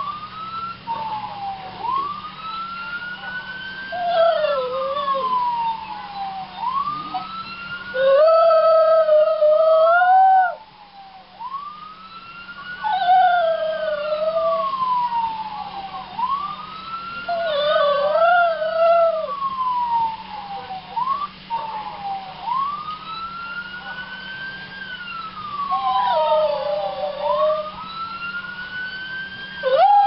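A cockapoo howling along with a police siren's wail. The siren rises quickly and falls slowly, repeating about every five seconds. The dog's lower, wavering howls come in several spells and are loudest about eight to ten seconds in.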